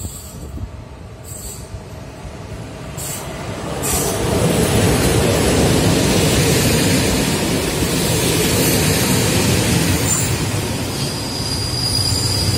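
Electric-hauled passenger train of blue České dráhy coaches rolling past close by. It grows louder as it approaches and is loud from about four seconds in. Steady high wheel squeal sets in near the end.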